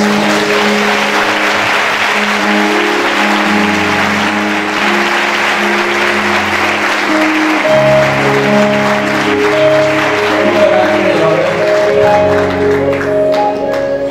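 Congregation applauding over a band's instrumental interlude of held chords and bass notes. The clapping thins out near the end as the music carries on.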